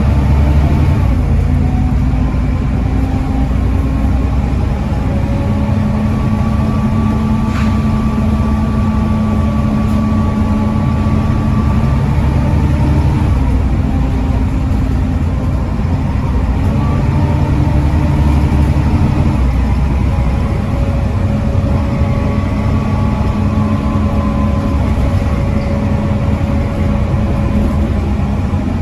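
Volvo D7C 7.3-litre diesel engine of a Volvo B7TL double-decker bus running with its ZF Ecomat automatic gearbox, a steady low rumble whose note holds and then steps to a new pitch several times as the revs change.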